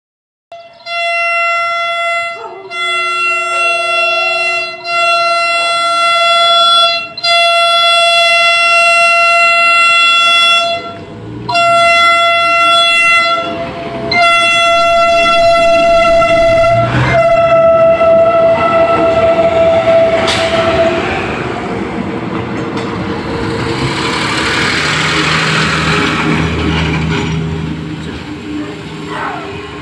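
PT INKA-built PNR DMU 8001 diesel multiple unit sounding its horn in a long series of sustained blasts with short breaks, for about twenty seconds as it approaches. The horn then stops and the train's diesel engines and wheels on the rails are heard running past close by.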